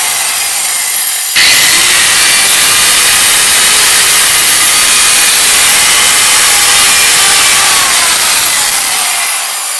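Angle grinder grinding steel at the engine mount: a loud, steady rasping hiss of the disc on metal. Near the end it comes off the work and winds down with a falling whine.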